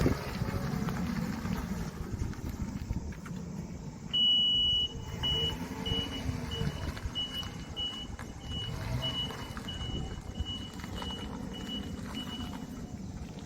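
1995 Subaru Sambar mini truck's rear-mounted 660 cc four-cylinder engine running and revving as the truck is driven. From about four seconds in, a high reverse warning beep sounds, first one long tone and then short beeps about twice a second, as the truck backs up.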